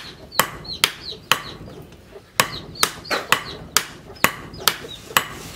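A sledgehammer and a hand hammer striking red-hot car-axle steel on an anvil in turn: sharp blows about two a second, with a brief pause about a second and a half in.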